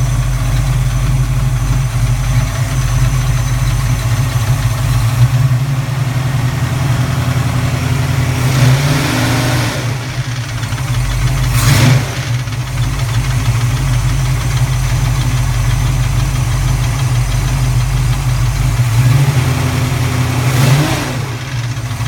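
Rebuilt 331 V8 idling on a cold start with a rapping, metallic clatter from the passenger side, which the owner suspects is valve clatter or piston slap and which goes away once the engine is warm. The throttle is blipped twice, each time a short rise and fall in revs, and there is one sharp click about halfway through.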